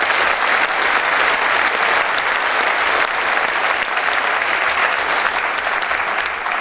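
Audience applauding steadily, beginning to die down at the very end.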